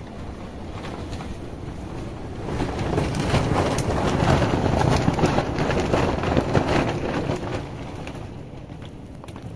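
A strong gust of storm wind buffeting the microphone. It swells a couple of seconds in, peaks mid-way with many small rattles, and dies back down near the end.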